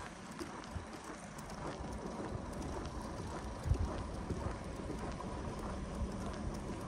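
Footsteps crunching on packed snow over a steady outdoor hiss, with one low thump a little past halfway.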